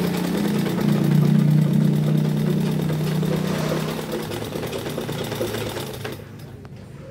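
Janome 680 sewing machine running and stitching a buttonhole, driven by a foot treadle and the handwheel instead of its electric motor. It slows down and stops about six seconds in.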